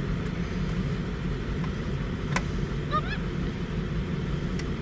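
Steady low rumble of car interior noise, with a single sharp click about halfway through and a short, quick rising squeak just after it.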